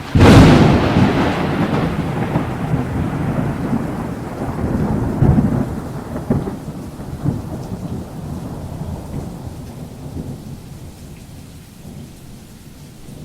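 Thunder: a sudden loud crack, then a long rolling rumble that slowly fades, swelling again a few times partway through.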